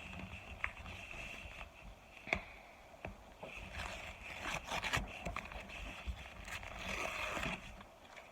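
Handling noises from a box of microwaved cornstarch: scattered sharp clicks and taps, with stretches of scraping and rubbing about halfway through and again near the end.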